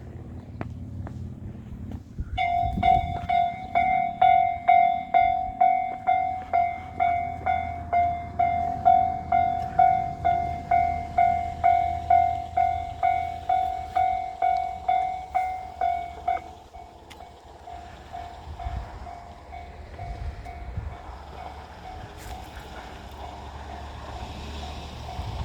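Japanese railway level-crossing warning bell starts up after a low rumble and rings its electronic clang about twice a second. About 16 seconds in it drops much quieter and keeps ringing.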